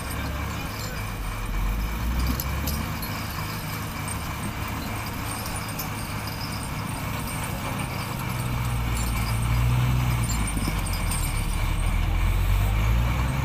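Diesel engines of a Hyundai HL780-7A wheel loader and a Hyundai crawler excavator running together with a low rumble that grows louder about eight seconds in as the two machines work the boulder.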